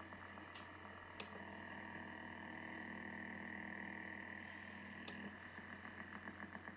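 Shortwave receiver audio: the rapid, even tapping of the Russian Woodpecker over-the-horizon radar, about ten pulses a second, drops out after a click about a second in. The receiver's interference suppression silences it, leaving steady hiss with faint hum tones. After another click near the end, the tapping comes back.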